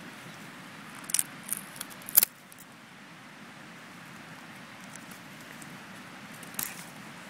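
A few sharp clicks and clacks from a knife and saw being handled against wood, a cluster of them in the first couple of seconds, the loudest just after two seconds in, and one more near the end, over a steady low background rumble.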